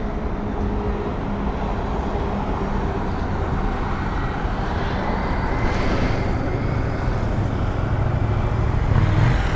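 Motorcycle engine idling with a steady low rumble that grows a little louder in the second half, over road traffic noise.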